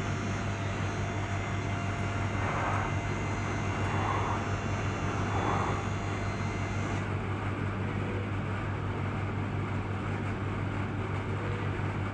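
Milk vending machine running as it dispenses fresh milk into a bottle: a steady low mechanical hum. A higher hiss on top of it drops away about seven seconds in.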